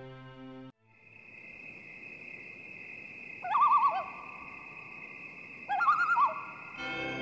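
Orchestral music cuts off just under a second in, leaving a steady high-pitched hum. Over it a bird gives two short quavering calls about two seconds apart. Brass music begins near the end.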